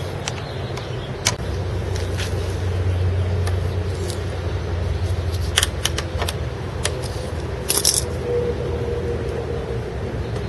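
Scattered small clicks and scrapes of hands working a rubber fuel line and its clamp loose under a lawnmower engine, with a quick cluster of clicks about halfway through and a brighter rattle near the end, over a steady low rumble.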